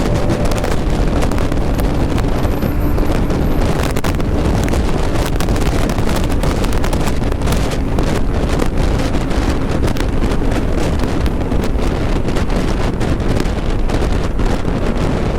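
Bajaj Pulsar NS200 single-cylinder engine running steadily at highway speed. Heavy wind rushes over the helmet-mounted microphone and largely covers the engine.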